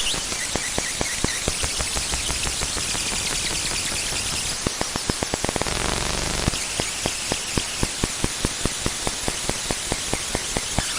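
Digital glitch sound effect: static hiss with crackling, irregular clicks, a short buzzing stutter about six seconds in, then evenly spaced clicks about three a second.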